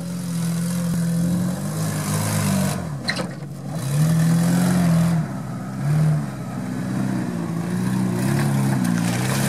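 Suzuki Vitara off-roader's engine revving up and down in repeated bursts as it works through a muddy trial section, loudest about halfway through, with a short sharp knock about three seconds in.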